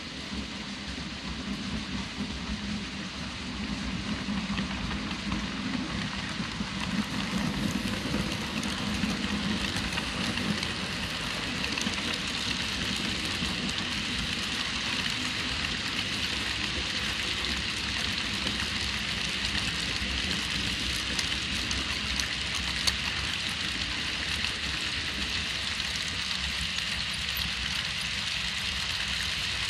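Model railroad freight cars rolling past on the track: a steady rattling hiss of the small wheels running on the rails, growing louder over the first ten seconds or so as the cars come by close, then holding steady.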